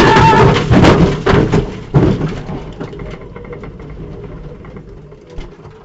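Rally car crashing: a run of loud knocks and crunches in the first two seconds, dying away to faint rattles and clicks as it comes to rest.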